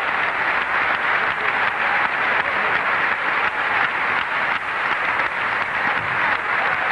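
Audience applauding steadily, a dense continuous patter of many hands clapping.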